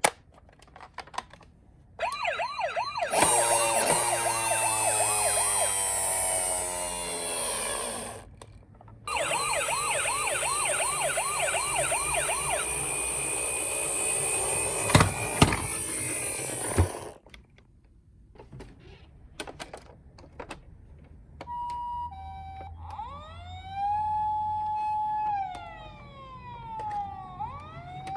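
Electronic siren sounds from toy emergency-vehicle minicars. After a few clicks, a fast, rapidly repeating siren sounds for about six seconds, stops briefly, and sounds again for about eight seconds. Near the end a quieter, slower siren rises, holds and falls.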